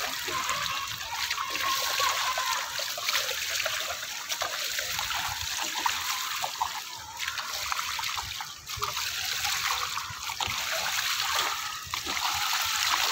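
Steady rush of running and splashing water, with small irregular splashes, and faint distant voices.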